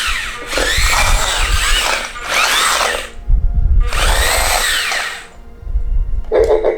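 Electric drive motors of a Chopper (C1-10P) remote-control astromech droid whirring in about four bursts, the pitch rising and falling in each as the droid speeds up and slows down. A lower buzzing tone starts near the end.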